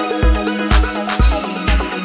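Background music: an upbeat instrumental track with a deep kick drum about twice a second under a melodic line.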